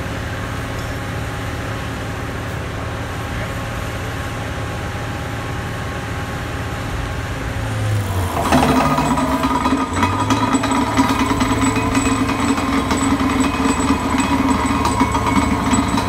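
Heavy diesel engine of a hydraulic vibratory pile-driving rig running steadily. About halfway through it turns suddenly louder, with a harsh buzz and a thin high whine as the vibratory hammer's hydraulics come up to work on the steel H-pile.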